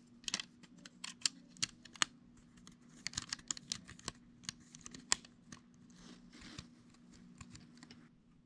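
LEGO bricks and plates being handled and pressed together: irregular sharp plastic clicks and snaps, thickest in the first five seconds, giving way to softer rustling near the end.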